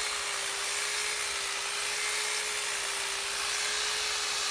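Electric hedge trimmer running steadily as its blades cut across the top of a clipped hedge: an even, high motor hum over a buzzing hiss.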